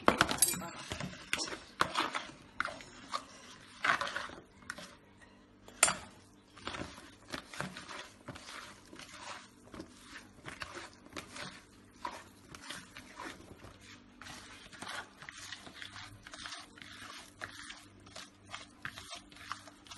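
Hands mixing raw chunks of sheep's liver and heart with spices in a plastic bowl: a run of irregular short clicks and rustles, with louder knocks of the bowls at the start and about four and six seconds in.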